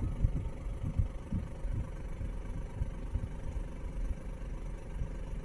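Car engine idling: a steady low rumble with a faint steady hum over it.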